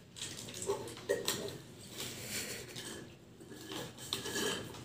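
Quiet sounds of eating and drinking: irregular small clicks and rustles from paper cups and burger wrappers being handled, with sips through drinking straws.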